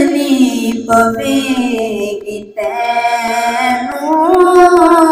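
A boy singing a Punjabi devotional poem in praise of Abu Bakr Siddique, unaccompanied, into a microphone: long held notes with melismatic wavering, in three phrases with short breaths about a second in and about halfway through.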